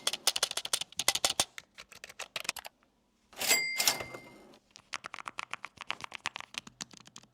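Typing on a cheap mechanical keyboard: rapid key clacks with a short pause, and a metallic ping that rings on after a burst of keystrokes about three and a half seconds in, the ping typical of a budget board.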